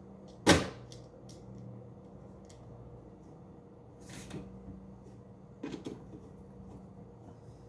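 Knocks and clicks of a PTAC air conditioner's housing being handled and closed back up, the loudest a sharp knock about half a second in, with a brief scrape around four seconds and a few light rattles near six seconds.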